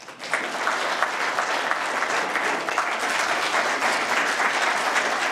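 Audience applause: many people clapping, breaking out just after the start and continuing steadily.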